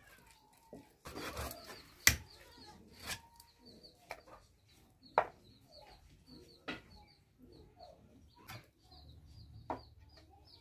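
Sharp cracks of raw chicken, bone included, being cut on a boti (an upright blade fixed in a wooden block on the floor), about seven cracks at uneven intervals, the loudest about two seconds in. Birds chirp in quick, high runs behind them.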